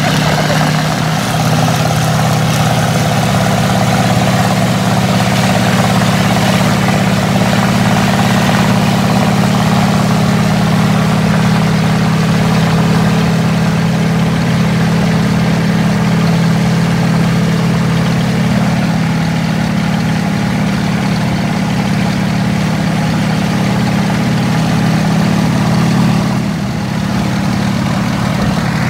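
M4 Sherman tank driving past on its tracks, its engine giving a steady, deep drone that drops a little near the end.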